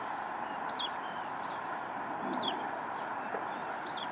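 Outdoor ambience with a steady background hiss and three short, high, falling bird chirps spaced about a second and a half apart.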